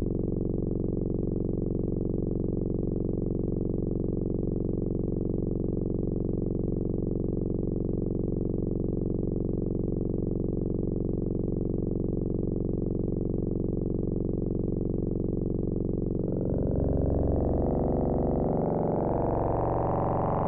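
Drone from the u-he Bazille software synthesizer, a sine oscillator fractalized with a saw: a steady, low sustained tone. About sixteen seconds in, it brightens and grows busier as its upper harmonics sweep upward.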